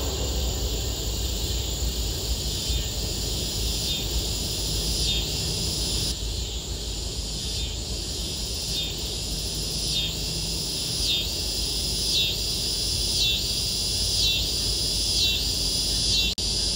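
Insects buzzing in the trees, the high drone swelling and fading about once a second, over a low steady rumble.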